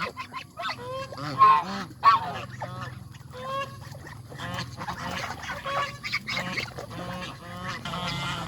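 A flock of domestic geese honking: many short calls overlapping, with two louder honks about a second and a half and two seconds in.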